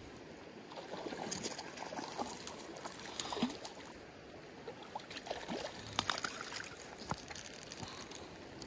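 Shallow creek water trickling and lapping at the bank, with a few small splashes and some sharp clicks or knocks a little past the middle.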